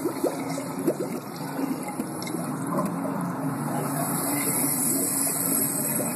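Water running and gurgling down a drain, with many small irregular clicks and splashes, played back through the small speakers of a video installation.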